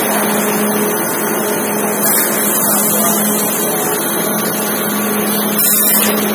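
Clay brick extruder running steadily as it forces a continuous clay column through its die onto the roller conveyor, with a constant low motor hum. Two short high hisses break in, about two seconds in and again near the end.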